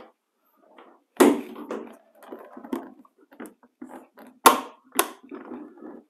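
Plastic shop-vac hose knocking and rustling as it is handled, then two sharp plastic clicks, half a second apart, near the end as the locking hose connector snaps into the inlet of a Ridgid HD1640 wet/dry vac.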